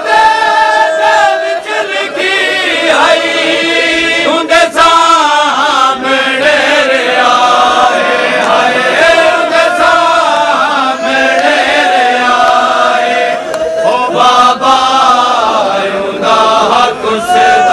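Men's voices chanting a Punjabi lament (kalam) for Bibi Sakina, the lead reciter and group holding long, wavering, drawn-out notes.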